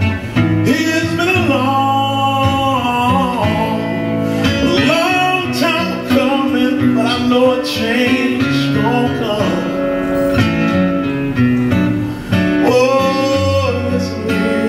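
Live band music with a man singing lead, holding and sliding his notes over guitar accompaniment.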